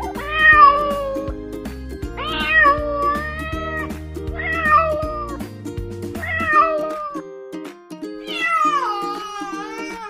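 A cat meowing five times: long, drawn-out meows that bend in pitch. Background music with a repeating figure runs underneath, and its bass drops out about two-thirds of the way through.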